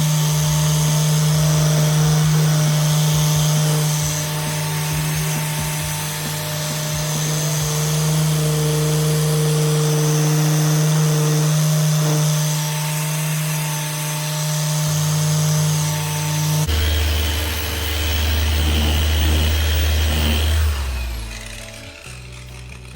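Dual action polisher running steadily, its pad working cutting compound over a plastic headlight lens, with a constant motor hum. The sound changes abruptly about three-quarters of the way in and dies away near the end.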